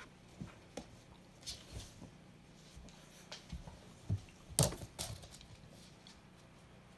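Puppies' paws and claws tapping and scuffling on a wooden floor and rug as they play, an irregular scatter of soft knocks. A few louder knocks come about four to five seconds in.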